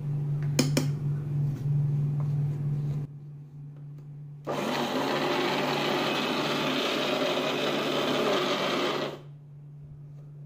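Electric mixer grinder (mixie) running for about four and a half seconds, grinding roasted peanuts with oil and honey into peanut butter; it starts and stops abruptly. A steady low hum sits underneath.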